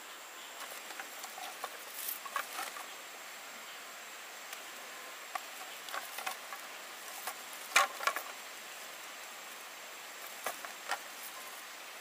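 Cut sugarcane stalks and leaves being handled and sorted by hand: scattered light knocks, clicks and rustles over a steady faint hiss. The loudest is a quick double knock about eight seconds in, with two more near the end.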